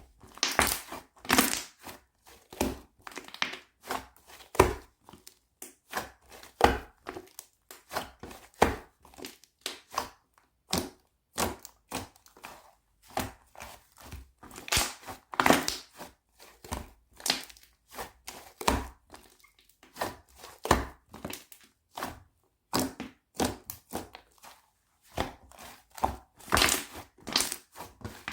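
Hands squishing, pressing and stretching a fluffy, air-filled slime, with trapped air bubbles popping in short, uneven bursts, about two a second.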